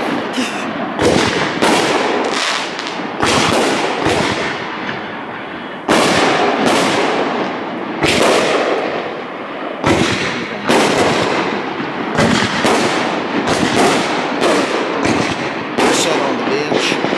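Aerial fireworks shells bursting one after another in a fast, irregular run of sharp booms, each trailing off in a fading echo, with hardly a pause between them.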